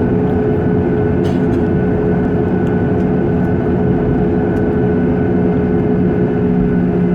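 Jet airliner's engines running with a steady rumble and hum, heard from inside the passenger cabin.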